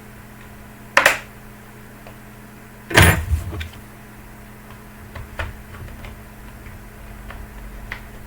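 Two sharp knocks, about a second and three seconds in, the second louder, then several lighter clicks, over a steady low hum.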